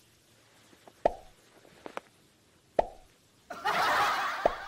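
Cartoon pop sound effects: three short plops, each a click with a brief ringing tone, about a second and a half apart. Shortly before the last plop comes about a second of loud hissing noise, the loudest sound here.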